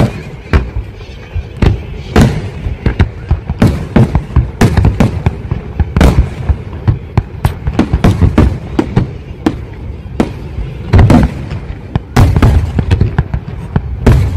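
Fireworks display: aerial shells bursting in quick, irregular succession, loud sharp bangs with deep booms, several a second, thickest about eleven to thirteen seconds in.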